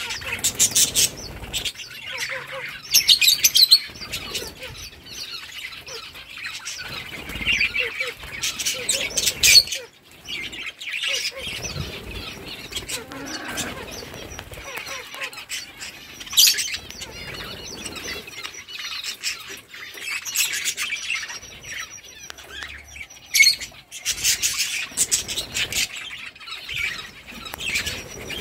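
Budgerigars chirping and chattering, with several louder bursts of rapid chirps.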